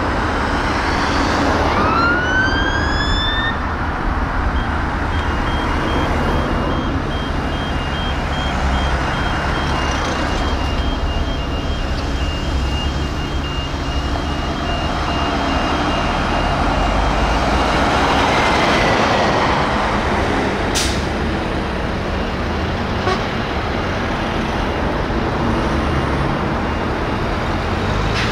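Scania P280 fire engine's siren winding up once in a rising wail about two seconds in, over diesel engine and road traffic noise. A broken high beep sounds through the middle, and there is a sharp click about two-thirds of the way through.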